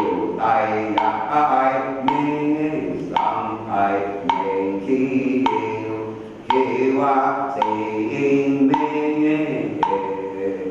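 A group of voices chanting a ritual scripture in unison in long, sung phrases, with sharp percussive knocks struck along with the chant about once or twice a second.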